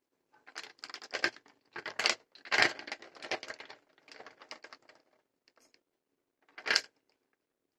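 In-shell walnuts rolling and clattering against a plastic colander as it is tilted: a run of quick rattling clicks over the first few seconds, then a single sharp knock near the end.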